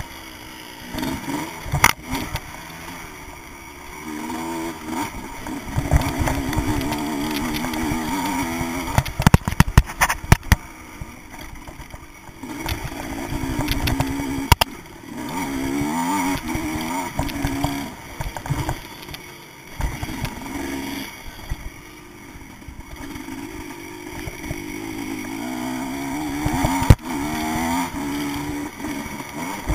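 Vintage motocross bike's engine heard up close from on the bike, revving up and easing off again and again as it is ridden hard, with wind buffeting and several sharp knocks, the loudest about a third of the way in.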